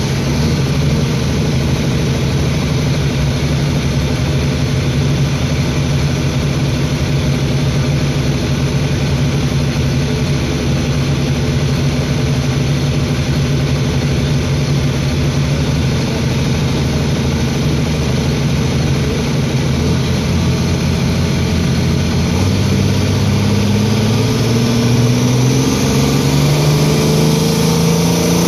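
Pulling tractor's engine running steadily while hooked to the sled, smoke pouring from its stack, then revving up in steps from about two-thirds of the way through, its pitch climbing as the driver brings up the revs for the pull.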